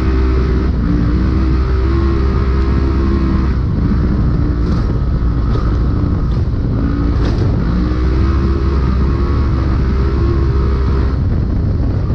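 Polaris UTV engine running, heard from inside the cab: its pitch holds fairly steady with small shifts up and down over a constant low rumble. A few light sharp knocks come around the middle.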